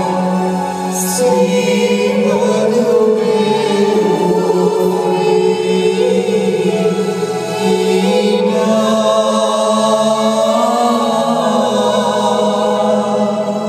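Wedding hymn sung to a keyboard accompaniment, the keyboard holding a steady low note under the sung melody.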